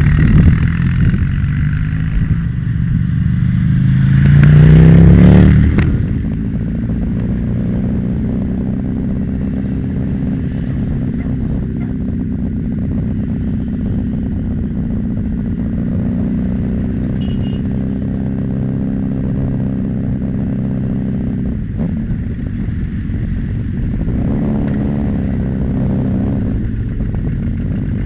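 Motorcycle engine heard from on the bike: it revs up with rising pitch for the first five seconds, loudest just before it breaks off abruptly. Then comes a steady engine drone at an even cruising speed.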